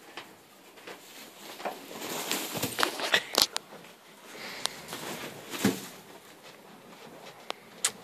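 Straw bedding rustling and crackling as a newborn foal shifts about in it, with a few sharp clicks and knocks, busiest between about two and four seconds in.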